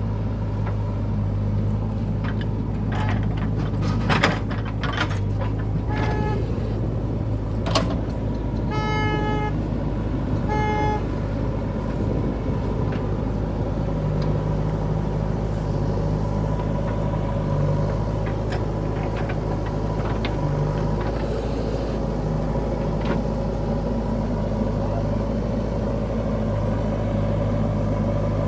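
Diesel engine of heavy machinery running steadily, with a couple of sharp knocks about four and eight seconds in. A vehicle horn gives two short toots about nine and eleven seconds in.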